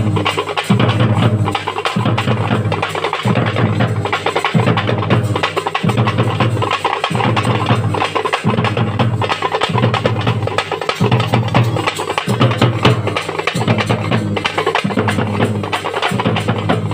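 A troupe of thappu (parai) frame drums beaten with sticks in a fast, dense, loud rhythm, with a deeper stroke recurring about every second and a quarter.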